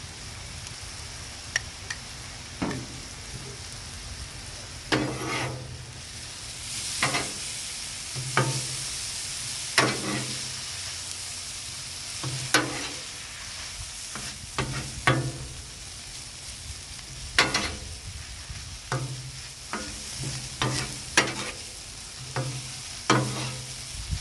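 Cheesesteak meat and eggs sizzling on a Blackstone flat-top griddle. Metal spatulas scrape and knock on the steel cooktop in irregular strokes every second or two as the meat is mixed.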